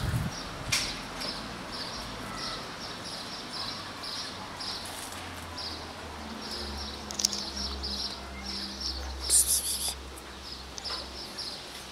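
A high chirp repeating steadily, about two to three times a second, with a short burst of rustling about nine seconds in.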